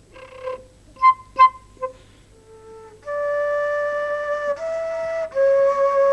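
Solo flute melody from a film score: a few short, detached notes, then from about halfway through three long held notes, the second a little higher and the last a little lower.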